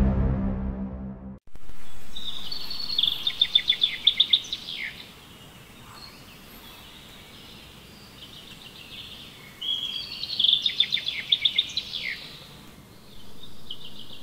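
The end of an intro music piece, cut off about a second and a half in, then a bird singing over faint outdoor background noise: two runs of quick, high trilled notes of about three seconds each, and a shorter run near the end.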